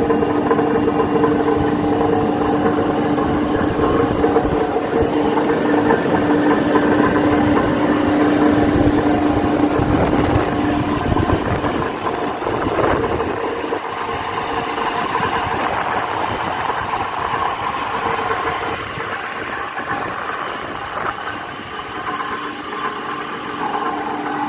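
Gear reducer (speed-reducer gearbox) running with a steady whine over a dense mechanical rattle, an abnormal noise that is the sign of a fault in the reducer. The whine fades about halfway through and the running gets a little quieter.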